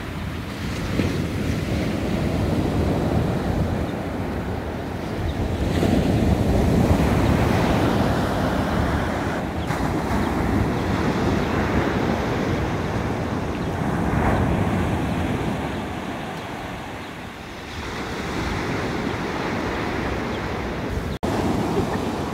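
Ocean surf breaking and washing up a sandy beach, with wind buffeting the microphone; the noise swells and eases over several seconds with the sets of waves, and cuts out for an instant near the end.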